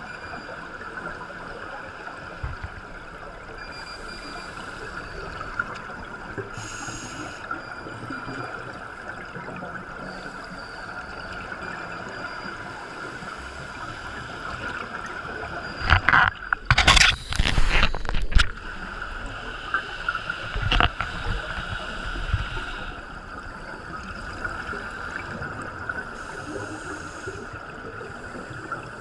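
Underwater sound heard through a camera housing: a steady muffled hiss, broken about 16 seconds in by a loud rush of scuba exhaust bubbles from a diver's regulator lasting about two seconds, with a few shorter bubble bursts soon after.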